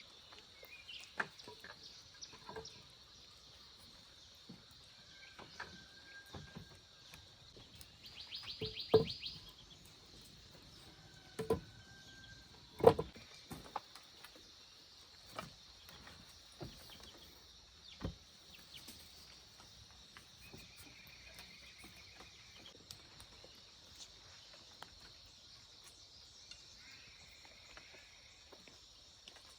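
Outdoor ambience: a steady high hum with a few short chirps and trills from birds, broken by scattered light knocks and clicks, the loudest about a third and halfway through.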